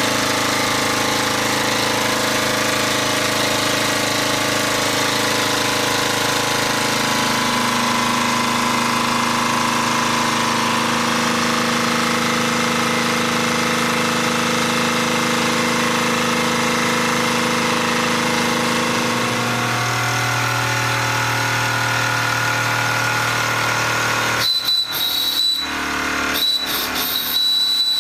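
Wilesco D24 toy live-steam engine running: a steady mechanical running noise with hiss, its hum shifting to a different pitch twice. Near the end a high-pitched tone cuts in and out among a few knocks.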